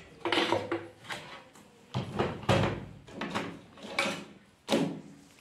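Handling noise on a workbench: a circuit board and small tools being picked up, knocked and set down, about six short knocks and scrapes with a heavier thump about two seconds in.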